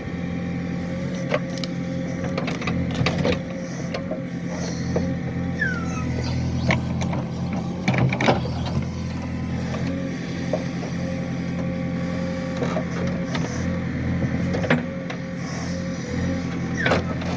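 Excavator's diesel engine running steadily with a constant whine over it, and scattered knocks and clanks throughout, the loudest around the middle, as it works at black locust stumps.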